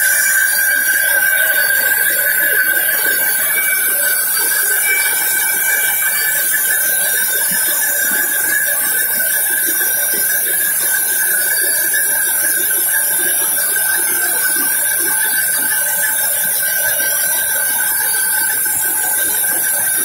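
Sawmill log band saw running with a steady high-pitched whine and a constant hiss over it as a teak log on the carriage is fed through.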